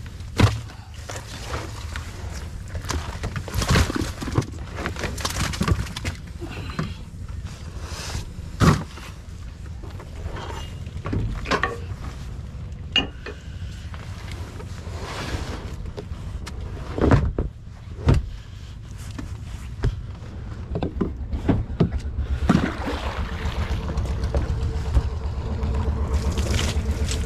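A fishing boat's engine running with a steady low hum, with scattered knocks and thumps on board. Near the end the engine grows louder and stronger.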